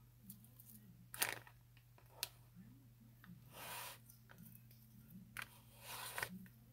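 Slime being stretched and pulled apart by hand: four short crackling, tearing noises, the last two a little longer, over a steady low hum.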